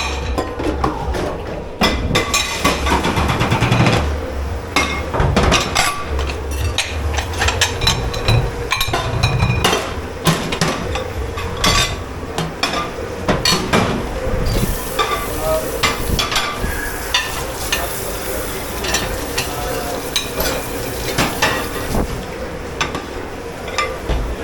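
Plates, pans and cutlery clattering and knocking against each other, over a continuous hiss that grows louder about halfway through, and a steady hum.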